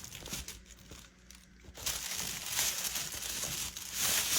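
Unboxing noise: packaging being handled, crinkling and rustling, with a brief lull about a second in and busier handling from about two seconds on.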